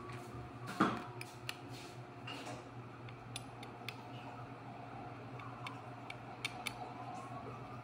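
Small kitchen handling sounds: a knock about a second in, then scattered light clicks and ticks of containers being moved, over a steady low hum.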